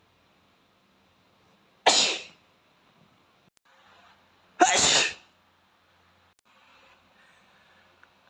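A boy sneezing twice, two loud, sudden sneezes about two and a half seconds apart, the second slightly longer.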